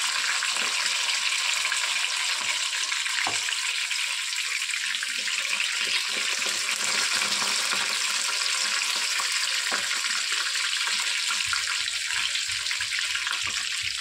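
Batter-coated rohu fish steaks frying in hot oil in a pan: a steady, dense sizzle with fine crackling. There are a couple of faint clicks, about three and ten seconds in.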